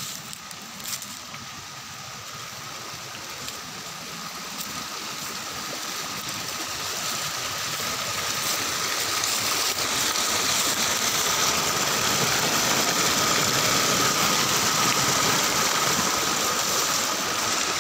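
Small stream rushing and splashing over rocks, a steady rush that grows louder through the first half and then holds.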